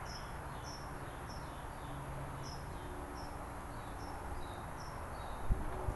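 Crickets chirping: short high chirps at two slightly different pitches, repeating about every two-thirds of a second, over a steady low background hum. A brief thump near the end.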